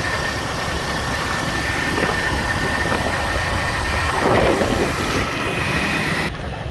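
An engine running steadily with a faint steady whine over it. Near the end the sound changes abruptly to a duller rumble.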